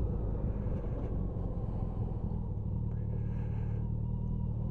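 Motorcycle engine running steadily under way, a low hum with wind and road noise, heard from a camera mounted on the bike.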